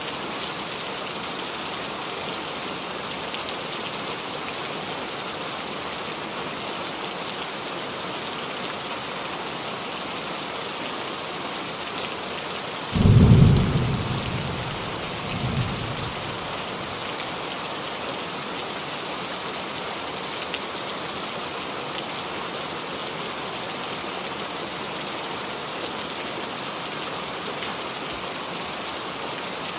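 Steady rain falling on a roof. About thirteen seconds in, a sudden loud low thunderclap rumbles and fades, followed by a weaker second rumble a couple of seconds later.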